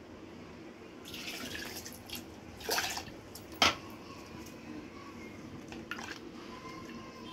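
Grated coconut squeezed by hand in a steel pot of water to extract coconut milk: wet splashing and dripping, with a sharp knock about three and a half seconds in.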